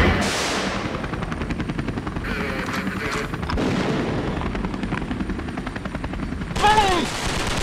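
Helicopter rotor chopping in a fast, even beat, a recorded sound effect played through a hall's PA system. A man shouts briefly about seven seconds in.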